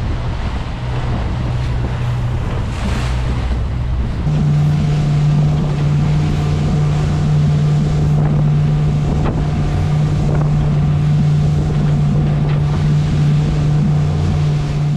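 Twin Suzuki 150 hp outboards driving the boat at speed, with water rushing past the hull and wind buffeting the microphone. The engine hum changes about four seconds in and then holds one strong steady pitch.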